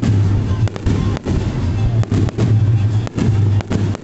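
Fireworks barrage: aerial shells bursting in quick succession, a loud continuous low rumble with crackle over it, briefly dipping for a split second several times.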